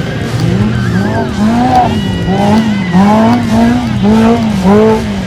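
Off-road race car's engine revving up and falling back again and again, about twice a second, in a steady rhythm.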